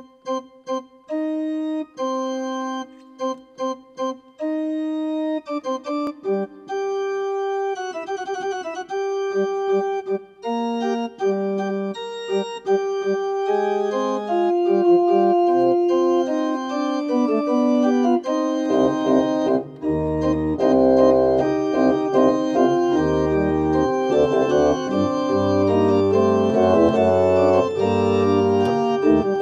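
Church organ playing. The music opens with short, separated notes, moves into held, overlapping chords, and deep bass notes come in about two-thirds of the way through, making it fuller.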